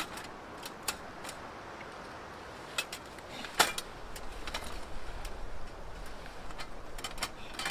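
Light metal clicks and clinks, scattered over several seconds, as the pieces of a small portable wood stove are fitted together; the loudest is a sharp click about three and a half seconds in.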